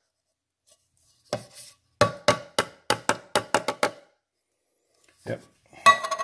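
An upturned steel can of drained corn is tapped repeatedly, about four sharp knocks a second for two seconds, to knock the last kernels into a plastic food-chopper bowl. Near the end comes a louder metallic clatter with a ringing tone.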